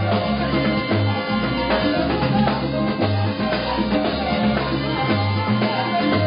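Live salsa band playing, with a repeating bass line under drums and percussion.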